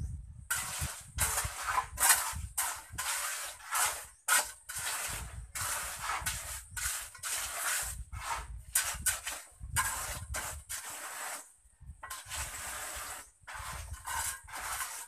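Steel trowel scraping over fresh cement floor, a long series of rasping strokes, roughly two a second, with a short pause near the end.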